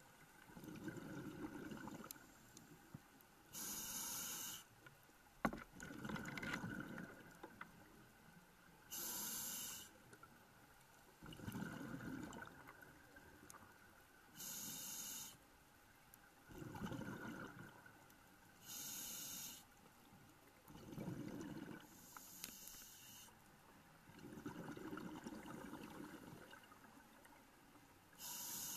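Scuba diver breathing through a regulator, heard through the camera's underwater housing. A short hiss on each inhale is followed by a longer low rumble of exhaled bubbles, a cycle about every five seconds. There is one sharp click about five seconds in.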